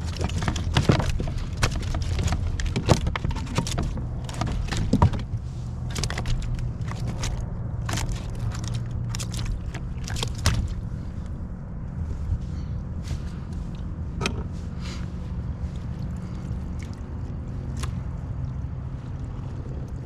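Scattered sharp knocks and clicks of gear and fish being handled in a fishing kayak, frequent at first and thinning out after about ten seconds, over a steady low hum and water sounds.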